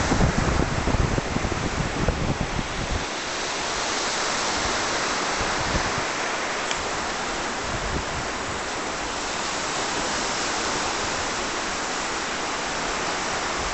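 Wind buffeting the microphone for about the first three seconds, then a steady, even rushing hiss of wind on the open beach.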